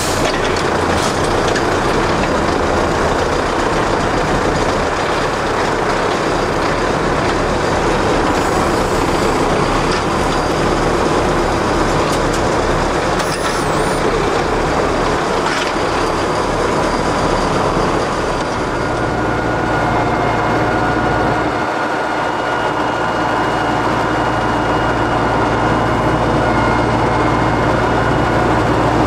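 BvL vertical feed mixer wagon running, its auger breaking up a bale in the tub: a loud, steady mechanical rumble. About two-thirds of the way through, it settles into a smoother drone with a faint steady whine.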